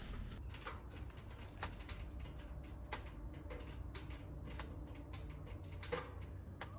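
Firewood burning in a tent-sauna stove, crackling with many irregular sharp pops and snaps over a low steady rumble.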